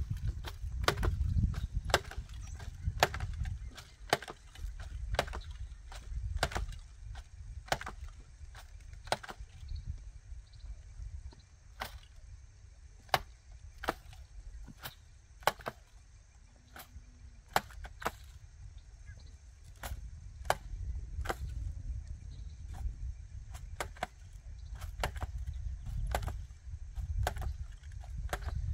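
Hand jab planter (matraca) jabbed into the soil and snapped shut over and over, a sharp knock roughly every second; each jab drops corn seed and fertiliser into the ground. A low rumble runs underneath.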